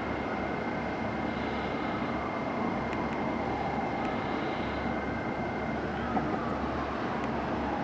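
Fire engine on an emergency run: steady engine and road rumble, with a siren faintly wailing slowly up and down. A steady high whine cuts off about three-quarters of the way through.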